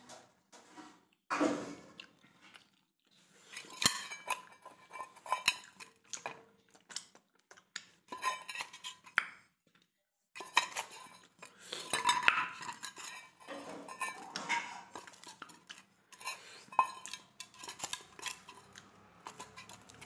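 Fingers scraping and knocking around a stainless steel bowl, wiping up the last of the food: irregular clinks and scrapes, some leaving the bowl ringing briefly.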